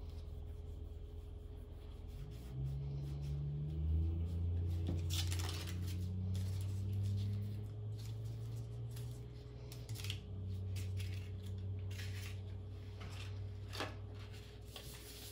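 Gloved hands wiping a digital scale and a plastic weighing boat with an alcohol pad: soft rubbing with small crinkles and clicks, sharper ones about five, ten and fourteen seconds in. A low hum runs beneath, louder from about two seconds in.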